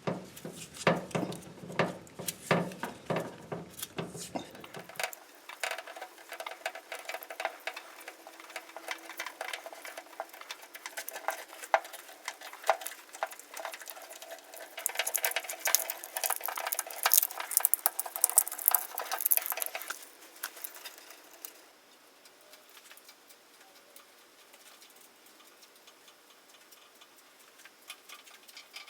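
Hands working on a vehicle wiring harness and its fasteners: a dense run of irregular small clicks and rattles for about twenty seconds, then only faint scattered clicks.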